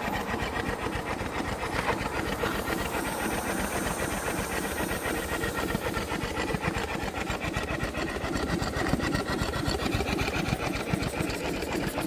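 Tiny Power two-cylinder compound vertical steam engine running steadily on steam, its valve gear and cranks making a rapid, even clatter with the chuff of the exhaust, while it belt-drives an alternator.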